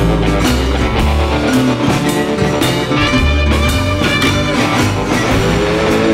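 Background rock music with guitar, drums and bass, playing at a steady loudness.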